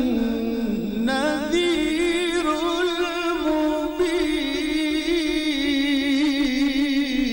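Male Quran reciter's voice in melodic mujawwad recitation through a microphone. After a short break about a second in, he holds one long, ornamented phrase on a steady pitch. It breaks off near the end, leaving an echo trailing away.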